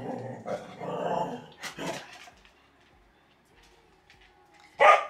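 A dog making low vocal sounds for the first couple of seconds, then giving one loud, short bark near the end.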